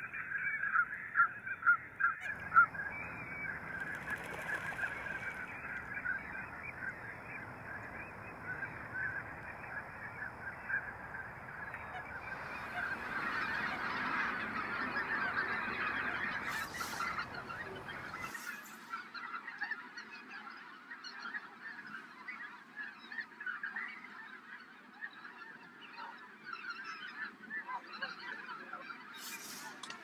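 A large flock of waterfowl calling together in a dense, continuous chorus of many overlapping calls. A few louder, sharper calls stand out in the first seconds, and the chorus swells about halfway through.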